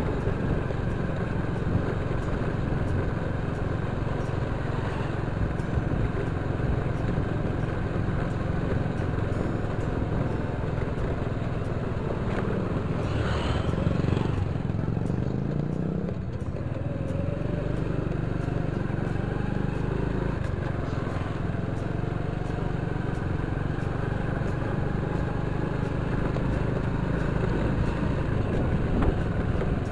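Small motorcycle engine running steadily while being ridden. About halfway through its pitch drops as it slows, then climbs again as it picks up speed.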